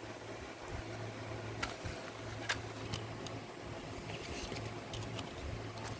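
Scattered light clicks and taps of a plastic CD case being handled and turned over, a few seconds apart, over a steady low hum.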